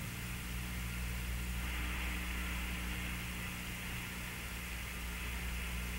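Steady hiss and low mains hum on an old broadcast audio line during a pause in the launch commentary.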